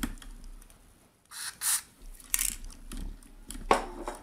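Aerosol can of Tri-Flow lubricant spraying in three short hisses, starting about a second and a half in, coating the moving parts of a Singer 401a sewing machine's needle-bar mechanism.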